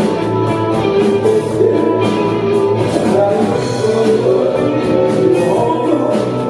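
A live rock band playing, with guitars over a steady drum-kit beat.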